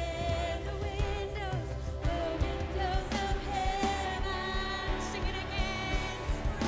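Live gospel worship music: a woman sings long held, wavering notes into a microphone with backing vocals, over keyboard and a drum kit keeping a steady beat.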